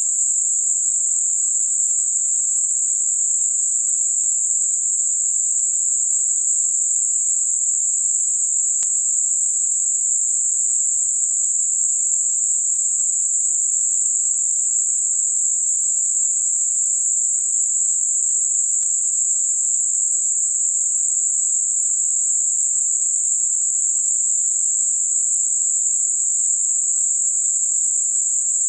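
Steady, unbroken high hiss of generated Gaussian narrowband noise centred on 7.5 kHz, with no low or mid tones under it. It is a tinnitus-masking sound-therapy noise.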